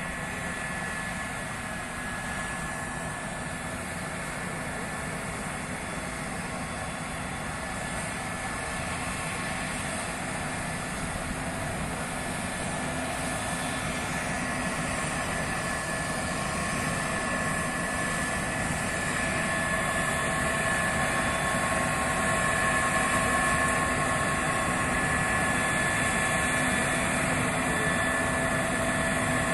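Case IH Axial-Flow 6150 combine harvester running under load while harvesting triticale: a steady drone from the engine and threshing machinery with a few held tones. It grows gradually louder as the combine comes closer.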